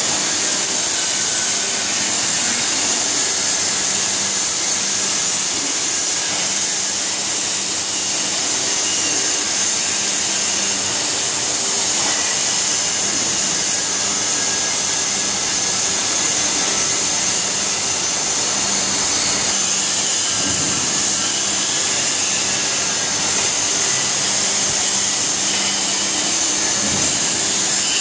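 Steady workshop machinery noise: a loud, constant hiss with a faint low hum under it.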